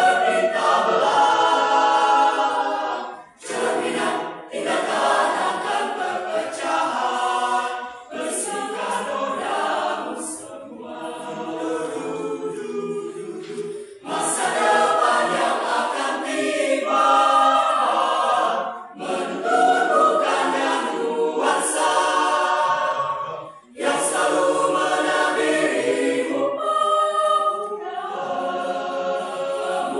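Mixed choir of men's and women's voices singing unaccompanied, in long sustained phrases with short breaks between them.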